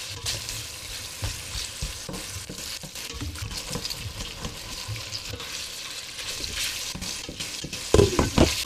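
Water poured from a pitcher into a hot stainless stockpot of bacon, onions and diced vegetables, hissing and sizzling as it hits the hot pan. Near the end a glass lid is set on the pot with a few knocks, the loudest sound.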